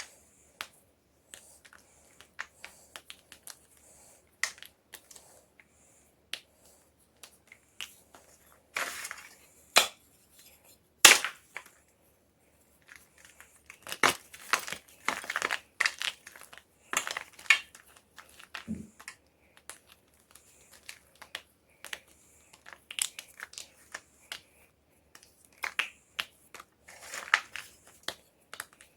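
Homemade gym chalk being crushed: scattered crisp crunches and snaps, thickening into crackling clusters, with one loudest sharp crack about eleven seconds in.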